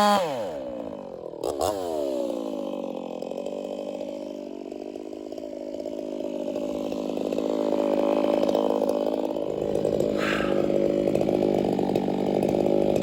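Ported Echo CS-4910 50cc two-stroke chainsaw coming off wide-open throttle: the revs fall steeply, it gives one brief rev about a second and a half in, then it settles into a steady idle.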